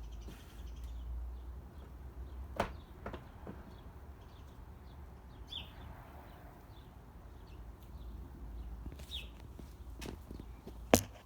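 A few scattered sharp clicks over a low rumble, the loudest click near the end, with faint bird chirps in the background.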